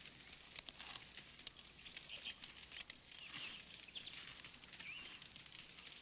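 Quiet background ambience: a low hiss with faint bird chirps and a scattering of small clicks.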